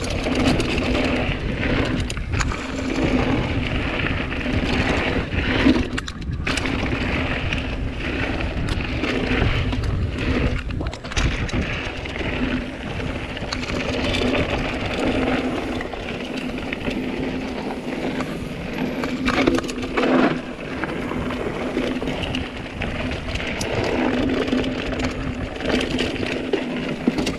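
Mountain bike riding fast down a dirt singletrack: tyres rolling over dirt and roots with a steady low hum, and the bike rattling and knocking over bumps many times along the way.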